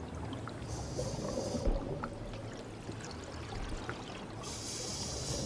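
Water sounds: a trickling, bubbling hiss that swells twice, over a low rumble and a faint steady hum.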